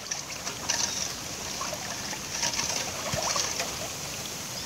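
A metal spoon stirring seasoned coconut milk in a stainless-steel pot, the liquid sloshing and swishing, with a few light clicks.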